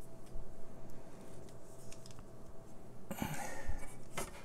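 Handling noise from an adhesive-backed LED strip being peeled off a spiral lamp frame: faint clicks and rubbing, then a louder rustling scrape about three seconds in.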